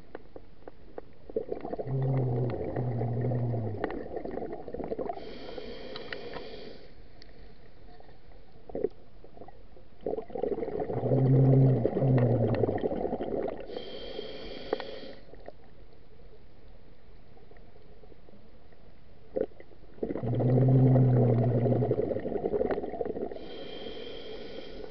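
Scuba diver breathing through a regulator underwater: three breath cycles about nine seconds apart, each a loud low sound lasting two to three seconds followed by a shorter, higher hiss.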